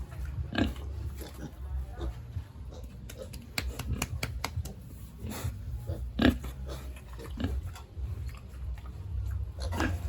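Pigs grunting over and over, with a few sharp clicks among the grunts; the loudest sound comes about six seconds in.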